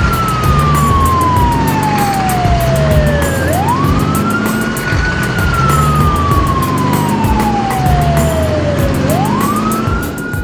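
Cartoon emergency-vehicle siren effect: a single tone that falls slowly for about four seconds, then sweeps quickly back up, twice. It plays over background music with a low, steady bass beat.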